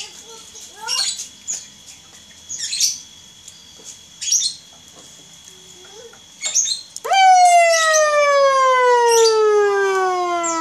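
Electronic siren module through its loudspeaker, starting suddenly about seven seconds in with a loud wail that falls slowly and steadily in pitch. Before it, short bird chirps come every second or two.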